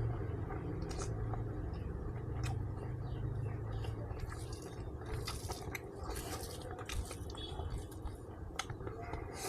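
Close-up chewing of pork: irregular wet mouth clicks and smacks, thicker in the second half, over a low steady hum.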